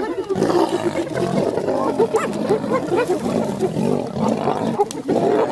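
Several wild predators fighting: a dense, loud tangle of growls and short high cries from many animals at once.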